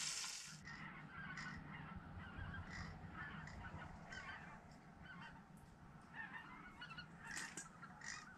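Frying sizzle that cuts off about half a second in, then many faint, overlapping bird calls over a low steady hum.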